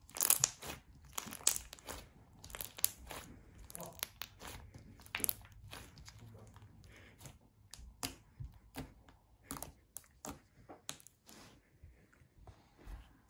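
Crunchy foam-ball slime kneaded and squeezed by hand, giving irregular crackles and pops as the foam balls are pressed. The crackling is dense in the first half and thins to scattered pops toward the end.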